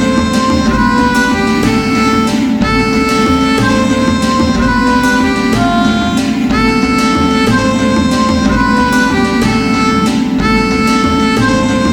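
Background music: a melody of held notes changing pitch over a steady beat.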